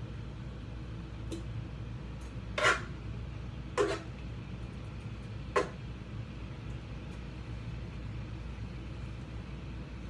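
A utensil knocking against a metal cooking pot while stirring melted butter: three sharp clinks a second or two apart, the first the loudest, over a steady low hum.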